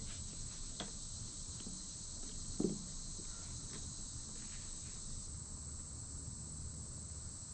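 Faint, steady high-pitched background hiss, with one soft knock about two and a half seconds in.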